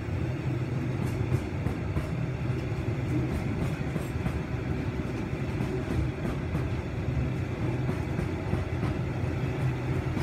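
Loaded bauxite hopper wagons of a freight train rolling past: a steady rumble of steel wheels on the rails, with faint clicks.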